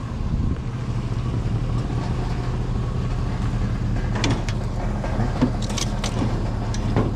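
Vehicle engine running steadily with a low hum. A few short clicks and clanks come between about four and six seconds in.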